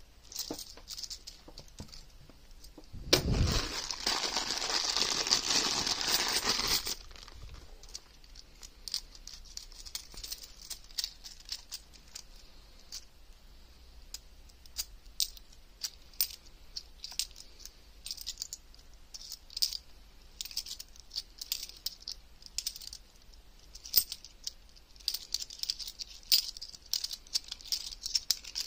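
Cupronickel 50p coins clicking and clinking against each other as they are handled and sorted one at a time, in scattered sharp clicks. About three seconds in there is a louder spell of dense handling noise lasting about four seconds.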